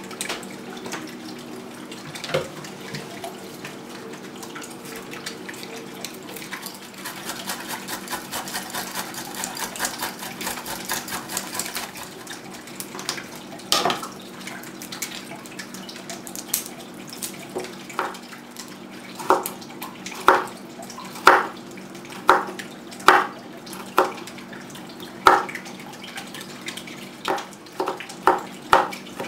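Chef's knife chopping garlic on a plastic cutting board: separate knocks about a second apart, coming quicker near the end. Before the chopping, quieter rustling and crackling of garlic cloves being peeled by hand, over a steady low hum.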